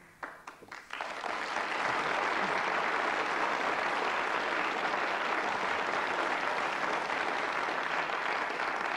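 Studio audience applauding: a few scattered claps, then full, steady applause from about a second in.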